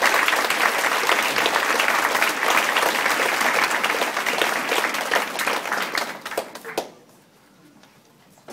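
Audience applauding, a dense patter of many hands clapping that thins out and stops about seven seconds in.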